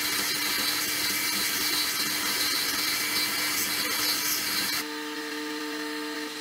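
Metal lathe turning a metal rod while the cutting tool shaves off chips: a dense, steady hiss over the machine's hum. About five seconds in the cutting noise stops abruptly, leaving the quieter steady hum of the spinning lathe.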